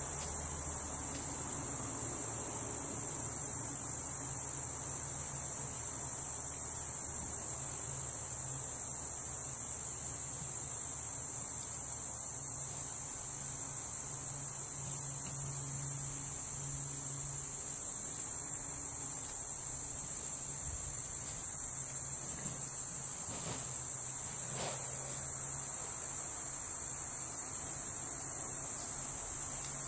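Steady high-pitched chorus of insects trilling, with a low steady hum underneath and a couple of faint clicks near the end.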